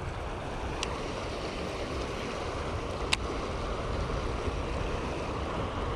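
Steady rush of a river current flowing past rocks, with two short sharp clicks about one and three seconds in, the second the louder.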